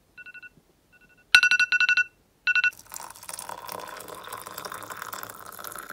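Smartphone alarm ringing in short trains of rapid high electronic beeps, faint at first and much louder from about a second and a half in, stopping a little under three seconds in. Then water pours steadily into a ceramic mug.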